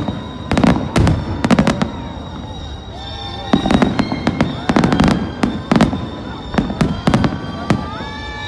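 Fireworks display: rapid salvos of sharp bangs and crackling bursts, coming in clusters about every second or two, with pitched tones heard between them.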